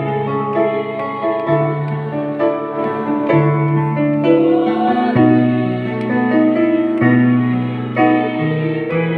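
A choir singing with an electronic arranger keyboard accompaniment, the keyboard holding chords over sustained bass notes that change every second or so.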